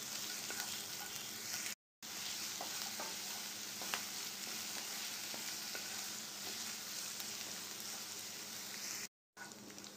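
Chopped onion, green chilli and ginger sizzling steadily in hot oil in a non-stick frying pan, stirred with a wooden spatula that gives a few faint taps against the pan. The sizzle drops out briefly twice.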